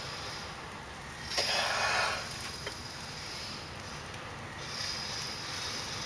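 One short, hard breath blown into a bundle of dry pine-needle tinder about a second and a half in, to fan a friction-fire coal toward flame. It starts suddenly and lasts under a second.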